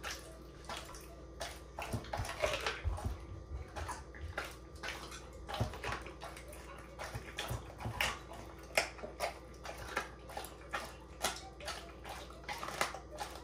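Dog chewing a piece of raw chicken: wet smacking and licking with irregular crunchy clicks.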